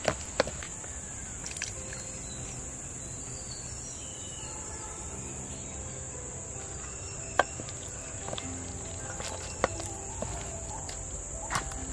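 Steady high-pitched drone of insects, with a few sharp clicks of a wooden spoon knocking against a stainless steel bowl as thick banana batter is stirred.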